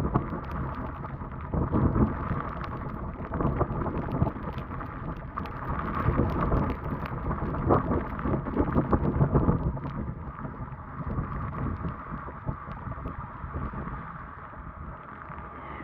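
A small boat under way through floodwater: wind buffets the microphone, and water slaps and splashes irregularly against the hull.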